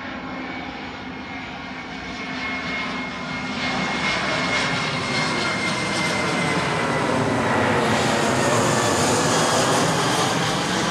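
Large jetliner on approach to land, flying low overhead. Its engine noise swells over the first few seconds and stays loud, with a high whine that slowly falls in pitch.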